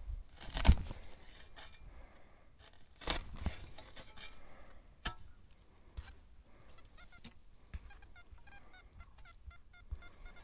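Metal detector giving short, broken target tones as its search coil sweeps back and forth over the soil. A few sharp knocks of handling come through, the loudest about a second in.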